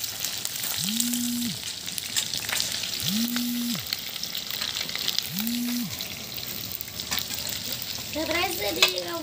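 Fish steaks deep-frying in hot oil in a steel kadhai, a steady sizzle. A low hum swells and fades three times, about two seconds apart.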